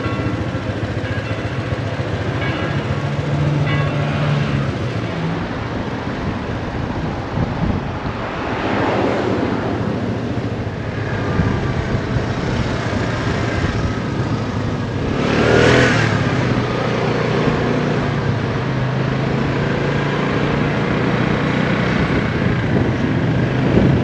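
Vespa scooter engine running under way, heard from the rider's helmet with steady wind and road noise. Two louder swells of noise come about nine and sixteen seconds in.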